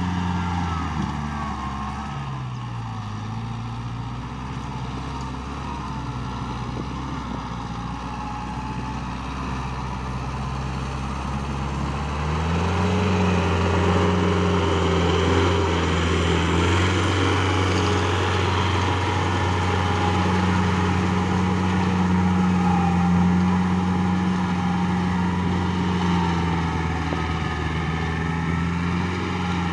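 Compact diesel tractor engine running steadily as it tills a wet rice field. Its pitch dips briefly a couple of seconds in, and it grows louder from about twelve seconds in as it comes close by.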